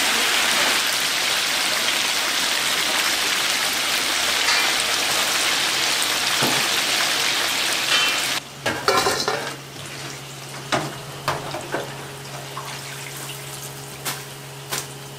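Battered chicken pieces deep-frying in a vat of hot oil, a loud steady sizzle. About eight and a half seconds in the sizzle drops away abruptly, leaving a steady low hum and scattered metal clinks and knocks from the wire frying basket being handled.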